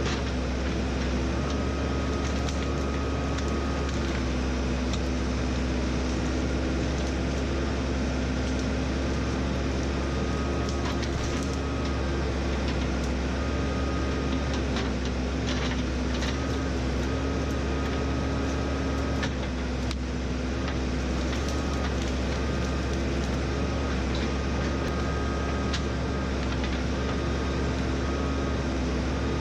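A heavy machine's engine, most likely the backhoe's, running at a steady speed with a deep rumble and an even hum, while short knocks and clicks come through now and then.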